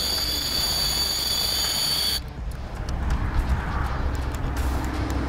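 Steady low rumble of wind on the microphone. Over it, a high, steady whine with overtones lasts about two seconds and cuts off suddenly.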